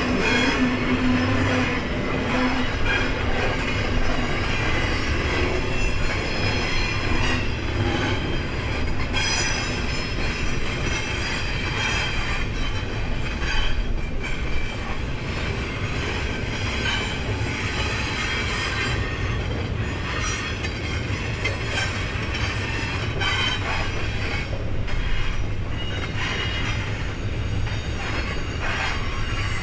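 Double-stack container train's freight cars rolling through a curve with a steady low rumble. Steel wheels squeal against the rail in thin, high tones, and there are occasional clacks over the track.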